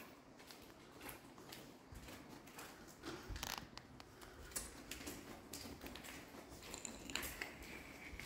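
Faint, irregular footsteps scuffing over grit and flaking plaster on a concrete floor.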